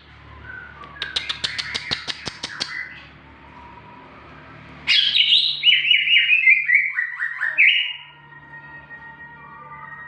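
Cucak ijo (greater green leafbird) singing vigorously: a run of sharp clicking notes with chirps, then a loud, rapid series of notes stepping down in pitch, followed by faint thin whistles.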